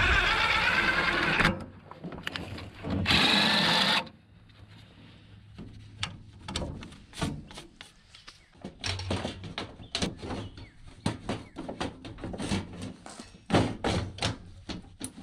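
Two bursts of a power drill driving self-tapping screws, each about a second and a half, with a wavering whine; then scattered clicks and knocks of parts and tools being handled.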